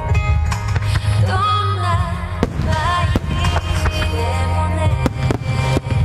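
Music with a wavering melody over steady bass notes, with fireworks shells bursting as sharp bangs through it, a few from about two and a half seconds in and a quick cluster near the end.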